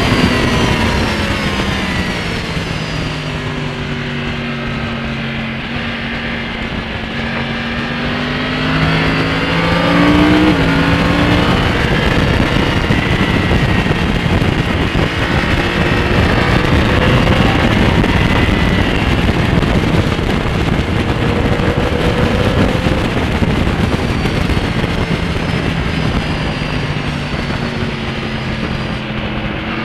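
2012 Yamaha R1's crossplane-crank inline-four, on de-catted Yoshimura carbon silencers, at speed on track: the engine note drops in the first few seconds, climbs again at about ten seconds, and falls once more near the end before picking up. Heavy wind noise on the bike-mounted microphone runs under it.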